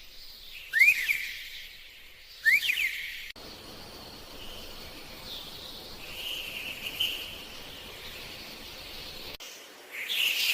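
Bird calls over a background of outdoor ambience: two sharp, loud chirps that sweep up and fall back, about a second and a half apart, then softer high chirping, and a burst of busier chirping near the end. The background changes abruptly twice, as at edits.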